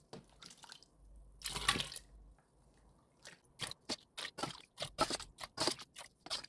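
Stainless steel ladle scooping radish pieces and brine out of a steel bowl and pouring them into a kimchi container: a short splash of liquid about a second in, then a run of quick, sharp clinks and clicks of the ladle against the bowl.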